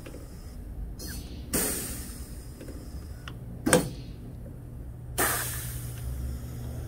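Pneumatic pop rivet gun setting rivets: short blasts of air hiss that start suddenly and fade, about one and a half and five seconds in, with a sharp snap near the middle, the loudest sound.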